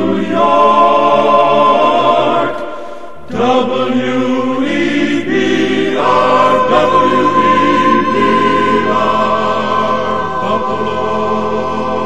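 A cappella vocal group singing the closing held chords of a 1960s radio station jingle, the chords changing about every three seconds with a brief break about three seconds in.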